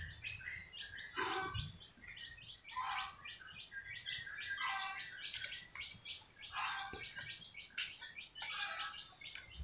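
Birds chirping: many short, high chirps in quick runs.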